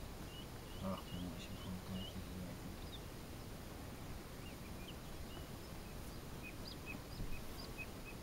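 Outdoor meadow ambience: a faint steady background noise with scattered short, high chirps of small birds calling in the distance. A faint low hum sounds briefly about a second in.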